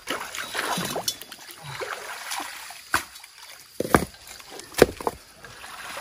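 Shallow muddy water sloshing and splashing as a long-handled hook rake is dragged through it, tearing out submerged grass. Several sharp knocks come in the second half.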